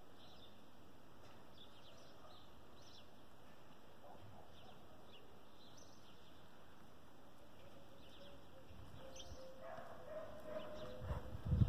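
Faint scattered bird chirps; near the end a walking horse comes close on sand, its hoofbeats heard as low thuds, with a steady hum rising in at the same time.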